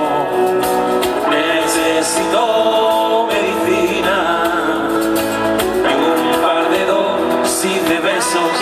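Live band playing a song: male vocals into microphones over guitars, bass guitar and drums, loud and unbroken.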